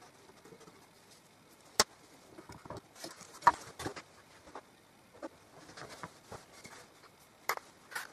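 Handling noise while gluing a wooden sewing machine case: scattered sharp clicks and light knocks of wood and a glue bottle, with soft rustling between them. The loudest knocks come about two seconds and three and a half seconds in, with more near the end.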